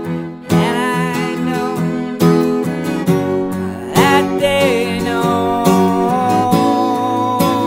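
A song on strummed acoustic guitar playing between sung lines, with a melody line that bends and wavers above the chords.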